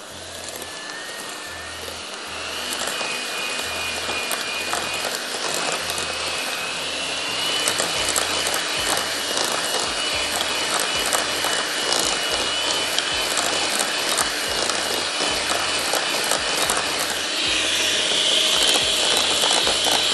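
Electric hand mixer running, its twin beaters creaming butter and sugar for cookie dough in a glass bowl. A steady high motor whine, rising slightly in pitch, runs over a fast ticking rattle, and the sound grows louder as it goes on.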